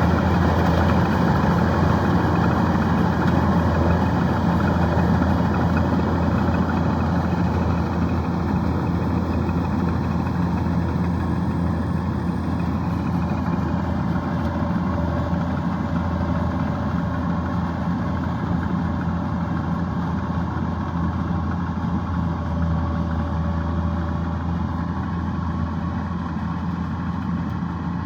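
Kubota DC-105X combine harvester running steadily: a continuous diesel engine and machinery drone that slowly grows a little quieter.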